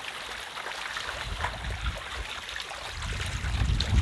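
A crowd of fish, carp among them, splashing and gulping at the surface of a pond as food is scattered, a dense patter of small splashes. A low wind rumble on the microphone builds in the second half.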